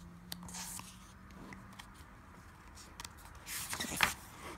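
A page of a picture book being turned by hand: soft paper rustling, loudest about three and a half to four seconds in, ending in a small tap.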